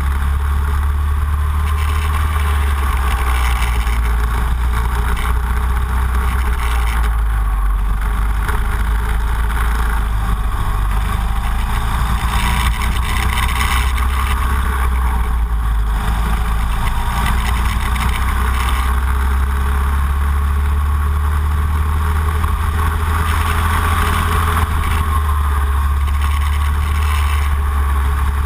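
Racing go-kart engine running hard through a lap, its note rising and easing as the kart speeds up on the straights and slows for corners, over a heavy low rumble of wind on the onboard microphone.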